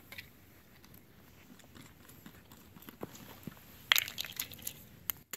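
Plastic test-strip bottle being handled and its snap lid opened: faint handling noises, then a quick cluster of sharp plastic clicks and rattles about four seconds in, and one more click near the end.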